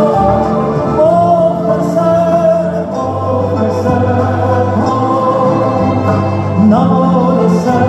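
Live Persian song: a male voice sings long held, wavering notes, taking up a new phrase with a rising glide about a second in and again near the end, accompanied by bowed violins and cello and piano, with steady bass notes underneath.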